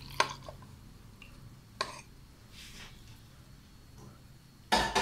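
Kitchen handling noises from a pan and a plastic measuring jug as the milk pour ends: two sharp clicks in the first two seconds, then a louder double knock near the end.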